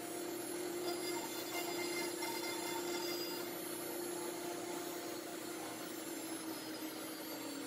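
Grizzly CNC router's spindle running, its 1/2-inch straight bit cutting a 3D roughing pass in MDF: a steady whine over an even machine noise that cuts off suddenly at the end.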